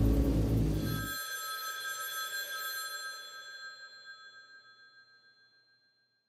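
A low, dark music drone cuts off about a second in as a telephone bell starts ringing. The ring fades out slowly over the next five seconds.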